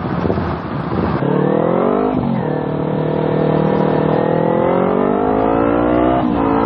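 Kawasaki Z250's 250 cc parallel-twin engine, fitted with an aftermarket exhaust, pulling away and accelerating. The revs climb, dip at an upshift about two seconds in, climb steadily again, and dip at a second upshift near the end.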